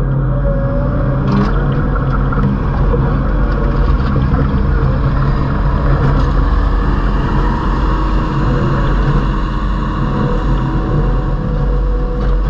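Kubota SVL75 tracked skid steer's diesel engine running steadily.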